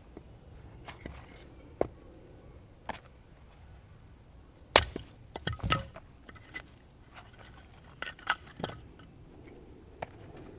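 Firewood being worked by hand: irregular sharp cracks, snaps and knocks of wood, loudest in a cluster about five seconds in.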